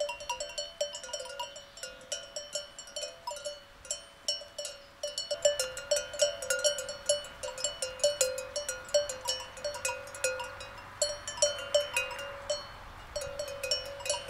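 Sheep bells clanking and jingling irregularly as a grazing flock moves its heads, several bells of a few different pitches ringing over one another.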